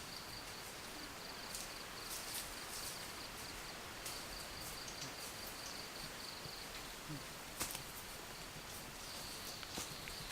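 Outdoor ambience with insects giving a steady high-pitched trill that stops and starts a few times. A few faint clicks or rustles come in the second half.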